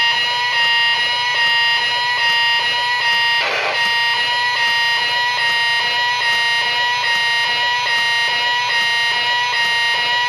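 Al's Dancing Fish, a singing animatronic bass plaque, playing its tune through its small speaker as a loud, buzzy run of held electronic notes stepping up and down, with a short rush of noise about three and a half seconds in. The toy is partly fried and not working correctly, and its owner thinks it could be corroded.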